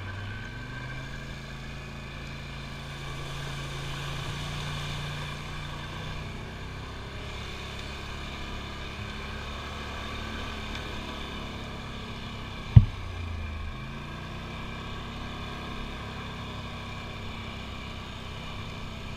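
Dirt bike engine running at low, fairly steady revs while riding a trail, easing off briefly a couple of times. About 13 seconds in there is one sharp knock.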